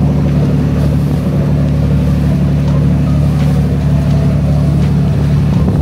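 Motorboat engine running at a steady cruise, a constant low drone that does not change.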